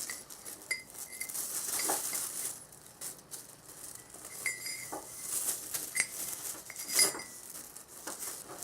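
Small metal parts and tools clinking and tapping against each other on a hard surface: a string of light knocks, several with a short metallic ring.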